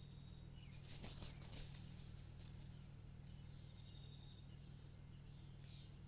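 Near silence: a faint steady low hum with a few faint high chirps and soft clicks.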